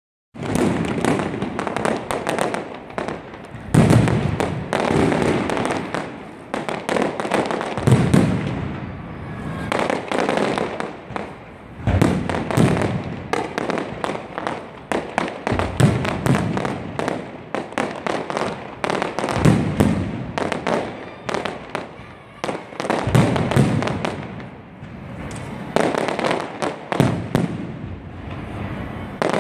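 Fireworks display: aerial shells bursting overhead, a heavy boom about every four seconds over continuous crackling and popping.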